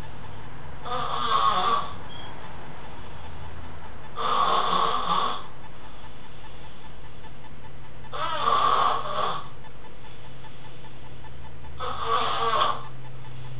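A man snoring in his sleep: four snores, one about every four seconds, each lasting about a second, over a steady low hum.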